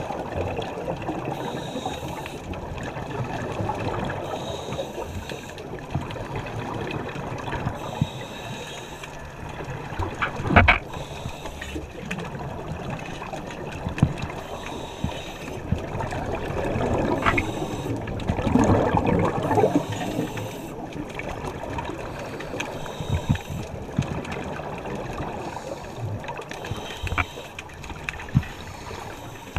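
Muffled underwater sound picked up through an action camera's housing: a scuba diver's regulator breathing, with a longer rush of exhaled bubbles a little past halfway. A sharp knock about a third of the way in is the loudest moment, and a few fainter clicks follow.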